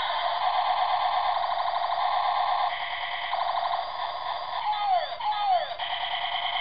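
Bump-and-go toy military jeep playing its electronic sound effects: rapidly repeating alarm-like tones, with a few falling whistle-like glides about five seconds in.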